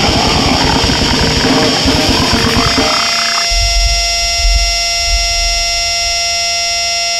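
Goregrind track: a dense wall of distorted noise over fast drumming, which about three and a half seconds in breaks off into a single sustained droning chord over a low rumble.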